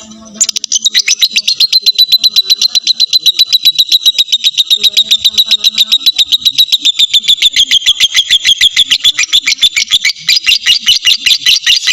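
A lovebird's ngekek: a long, unbroken chattering trill of sharp, high notes, about ten a second, starting half a second in and breaking off briefly near the end before running on.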